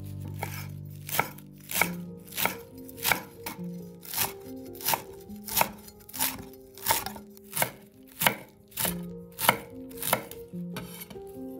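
Kitchen knife chopping fresh parsley on a wooden cutting board: a steady run of sharp knife strokes hitting the board, about three every two seconds, stopping near the end.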